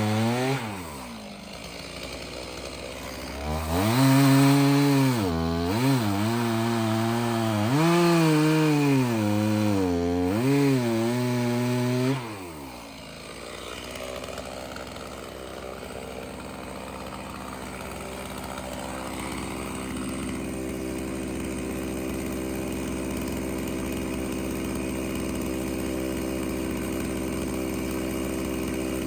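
Stihl MS 391 two-stroke chainsaw dropping to idle, then running at high revs for about eight seconds with the pitch sagging and recovering several times, as when cutting wood. About twelve seconds in it drops back to a steady idle.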